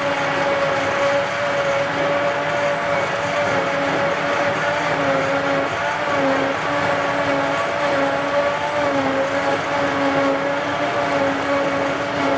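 John Deere 8600i self-propelled forage harvester running under load while chopping windrowed grass: a steady, loud machine drone with a pitched whine that wavers slightly in pitch.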